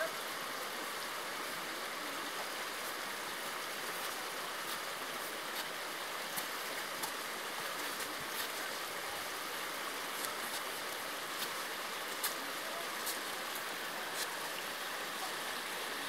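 Small mountain stream running over rocks: a steady rush of water, with a few light clicks scattered through it.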